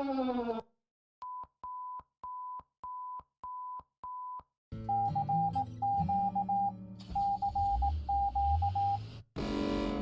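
Emergency alert broadcast tones: a falling pitched tone cuts off, then six short, evenly spaced beeps. About halfway through, a second alert starts with quick runs of beeps over low droning tones, and near the end a louder, harsher alert begins.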